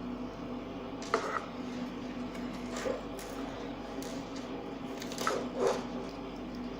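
Slime being squeezed by hand: a few short, wet squelches, the loudest just after one second in and two close together past five seconds, over a steady background hum.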